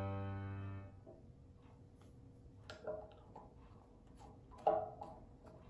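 A sustained keyboard note from background music fades out in the first second. After that, a few light clicks and knocks as small plastic bottles and a cap are handled and set down on a countertop, the loudest near the end.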